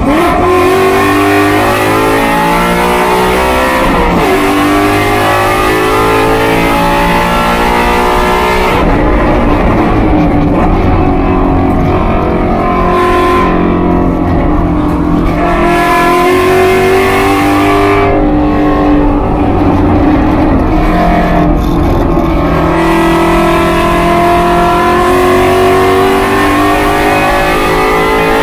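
Race car engine at full effort, heard from inside the cockpit: its note climbs again and again under throttle and dips several times where it lifts for corners and braking, over steady wind and road noise.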